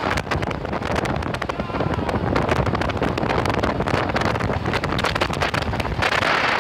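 Wind buffeting the microphone hard while riding at speed, over the running of motorcycle engines. The buffeting grows stronger about six seconds in.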